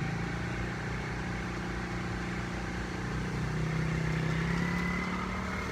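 Four-wheeler (ATV) engine running at low speed, its pitch rising slightly about halfway through as it picks up speed.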